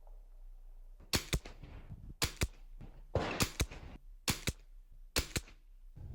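.22 rimfire rifle shots with budget CCI ammunition: five sharp cracks about a second apart, each heard as a quick double crack.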